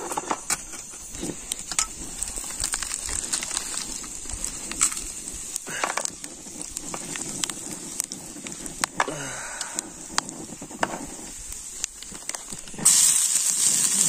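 Campfire crackling with irregular sharp pops over a steady high drone of night insects. Near the end a sudden loud hiss sets in.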